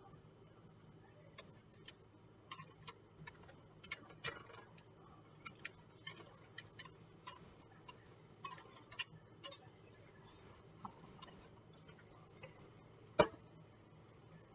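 Metal balloon whisk stirring melting chocolate in a glass bowl over a pot of hot water, its wires making faint, irregular clicks against the glass. One much louder knock comes near the end.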